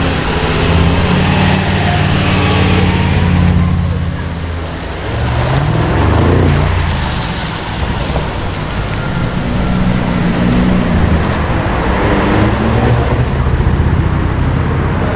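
Audi RS6 engine running, with a rise in pitch as it revs about five seconds in, then holding steady again.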